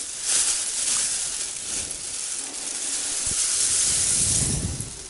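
Tall grass rustling as a hand pushes through it and grabs a small fish lying in it, with a low rumble on the microphone about four seconds in.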